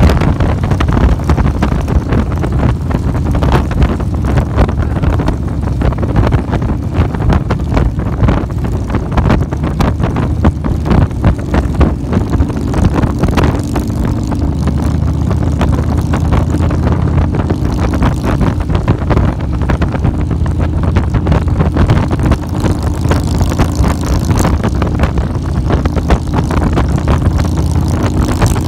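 Cruiser motorcycle engine running steadily at road speed, with wind buffeting the microphone.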